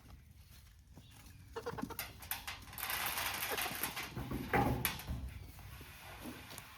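Chickens clucking, with a stretch of rustling noise and sharp clicks in the middle, loudest for about four seconds.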